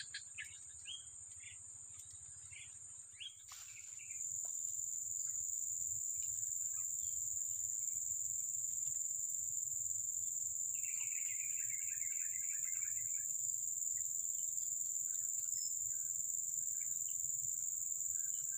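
Steady high-pitched drone of insects in swampy vegetation, louder after about four seconds. Short repeated bird chirps over the first few seconds, and a quick run of bird chirps about eleven seconds in.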